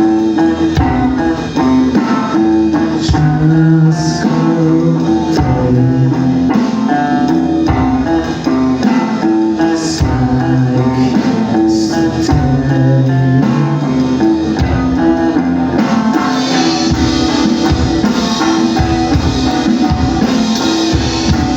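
Live rock band playing an instrumental passage: guitars over bass and drums, with a steady beat. The top end grows brighter about three-quarters of the way through.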